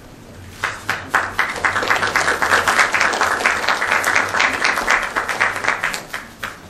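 Audience applauding: a dense patter of many hands clapping that starts about half a second in and dies away near the end.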